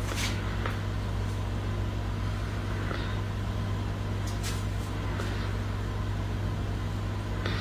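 A steady low electric hum, with a few faint clicks over it.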